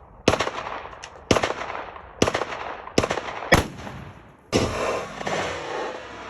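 AR-15 rifle shots: five sharp cracks, unevenly spaced over about three seconds, each with a short echo. About four and a half seconds in, a bigger blast that hangs on as a long rumbling wash, fitting a bottle of Tannerite going off.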